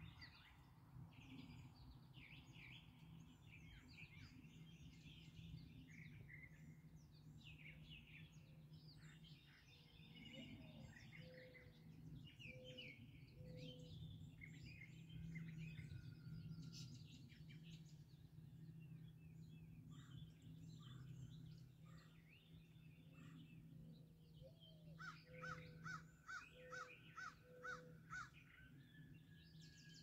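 Faint dawn chorus of several wild birds chirping and singing, with one bird giving a fast run of about eight repeated calls near the end, over a steady low hum.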